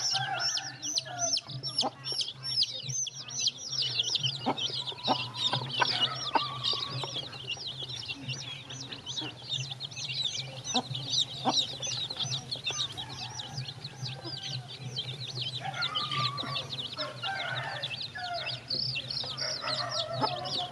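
A brood of chicks peeping without pause: many short, high, falling cheeps overlapping, with lower calls from larger chickens near the start and again near the end, over a steady low hum and a few sharp clicks.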